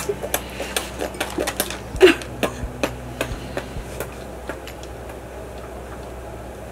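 Scattered small clicks and taps, irregular and unevenly spaced, with a brief voice-like sound about two seconds in. They thin out after about four seconds, leaving only a low steady background.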